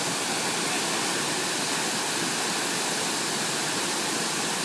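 Large waterfall rushing: a steady, even roar of falling water.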